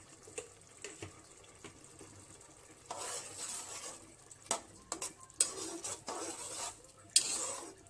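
A spatula stirring a pot of boiling chana dal, scraping and knocking against the pot, starting about three seconds in; the loudest knock comes near the end.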